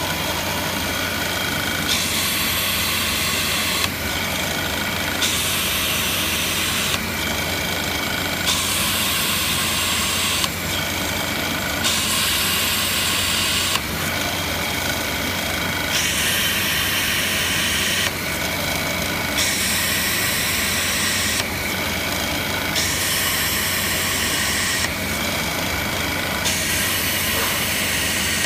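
Drill press motor running with a steady hum while a 6 mm sintered diamond drill bit grinds through wet 8 mm glass, hole after hole: a loud hiss lasting about two seconds comes and goes every three to four seconds, with small knocks as each hole starts and ends.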